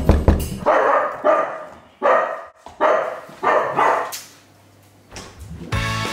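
Dachshunds barking, about six short barks over the first four seconds.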